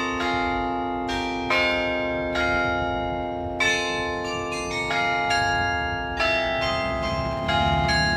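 Carillon bells of a glockenspiel clock tower playing a slow tune, each struck note ringing on under the next.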